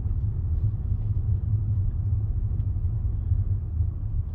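A car being driven slowly, heard from inside the cabin: a steady low rumble of engine and road noise.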